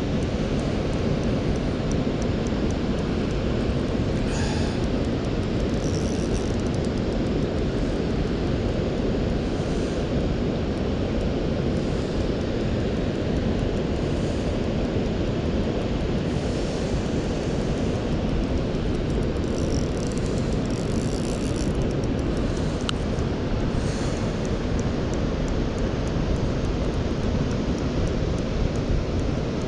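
Steady rushing of river water pouring over a weir, an even low noise that does not let up.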